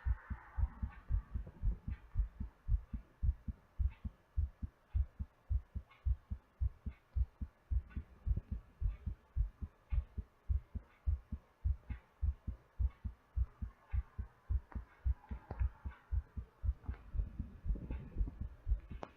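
Human heartbeat picked up close against the chest: fast, regular lub-dub pairs of low thumps, about two beats a second, with the heart still elevated in recovery after exercise.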